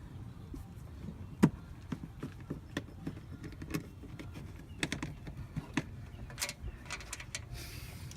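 Irregular clicks and knocks of the BMW's plastic cabin filter housing and cover being handled and fitted back into place, with one louder knock about one and a half seconds in.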